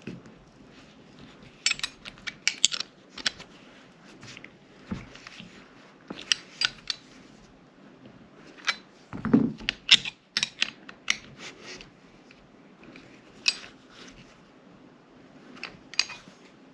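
Small metal clicks, taps and clinks of a sight pusher tool and a Glock 17 pistol slide being worked and handled. The sounds are scattered and irregular, with a heavier clunk and clatter about nine to ten seconds in.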